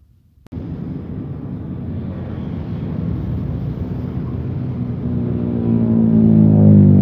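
Passenger train passing below: a steady rumble of wheels on the rails that starts suddenly about half a second in and grows louder. A droning hum with a steady pitch rises over it in the last two seconds.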